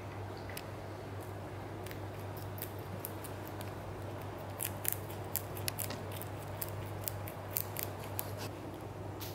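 Rabbit crunching a crisp green vegetable stalk: a run of sharp crunching bites, about three a second, through the second half, over a steady low hum.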